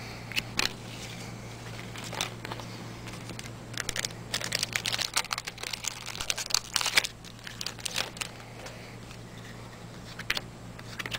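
Trading-card pack wrappers crinkling and tearing as packs are opened and cards handled, in irregular crackly spurts that are busiest midway through, over a steady low electrical hum.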